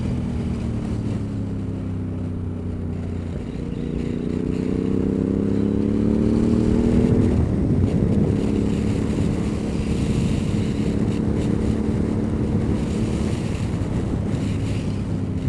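Motorcycle engine with an Akrapovic exhaust, heard from on board the bike. The revs fall for the first few seconds, then climb for about three seconds, change suddenly at a gear shift about halfway through, and then run steadily at cruising speed, with wind rush over it.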